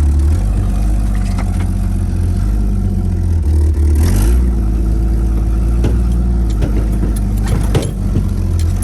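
Jeep CJ7 engine running with a steady low drone, its note changing about four seconds in, with a few short clicks and rattles near the end.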